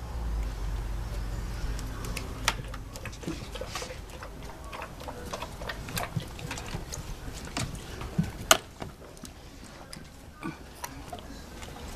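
Standard poodle with its head in a bowl, making a run of irregular clicks and taps, with one sharper knock about eight and a half seconds in.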